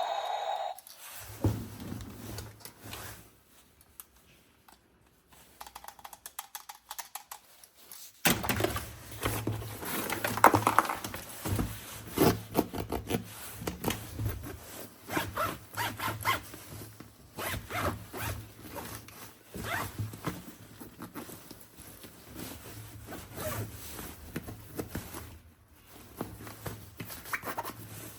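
Rapid, repeated scraping and rubbing strokes, zipper-like, over a low hum; they start after a quieter first third and keep coming in quick irregular runs.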